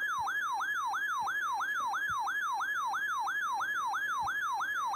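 RadioShack 12-996 weather alert radio's siren alarm going off for an Emergency Action Notification: a high electronic tone that sweeps up and down about four times a second.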